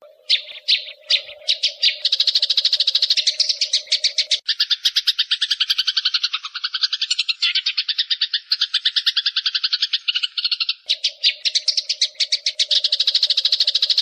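Eurasian tree sparrow giving a long, rapid 'fighting' chatter. It opens with a few separate chirps, then the notes run together into an unbroken rattle. In the middle stretch the chatter turns fuller and lower for several seconds. A steady low hum lies under the first and last parts.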